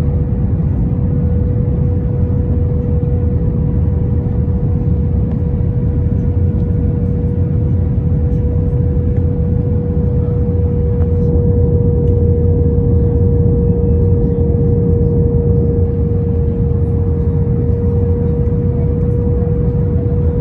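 Airbus A321 cabin noise on approach with the flaps out: a steady low rumble of engines and airflow with one constant hum, swelling slightly in the middle.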